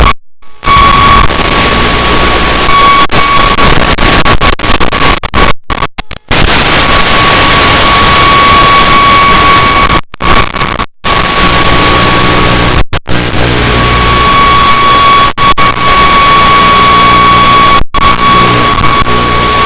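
Loud radio static hiss from an analog FPV video receiver, with a steady high-pitched buzz tone running through it. The hiss cuts out abruptly many times, for a moment each time.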